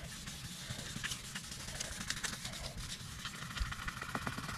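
2000-grit sandpaper rubbed by hand with firm pressure over a Hyundai i10's plastic headlight lens, a steady, fairly quiet scratching. It is the sanding stage of restoring a dull, weathered lens before polishing.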